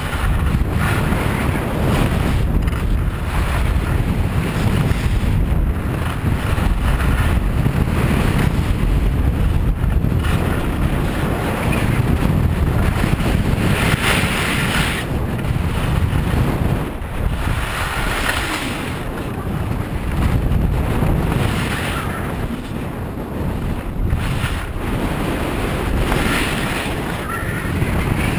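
Wind buffeting an action camera's microphone at skiing speed, with the hiss of skis sliding over packed snow that swells several times, as at each turn.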